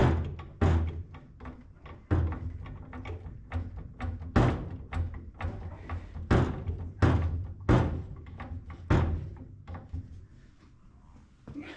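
A run of sharp knocks and thuds, about a dozen, with a low rumble between them, from car wheel dollies being shifted and rolled under a car.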